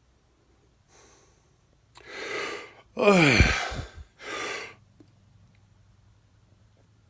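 A man's hiccup: a noisy breath, then a loud, voiced hiccup lasting about a second with a croak that drops steeply in pitch, followed by another breath.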